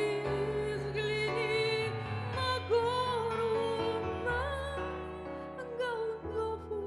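Music: a slow Christian song's accompaniment, a wavering held melody line over soft keyboard chords and a steady bass.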